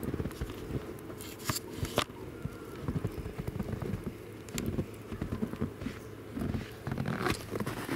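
Footsteps crunching through deep fresh snow in an uneven walking rhythm, with a few sharp clicks in between, the loudest about two seconds in.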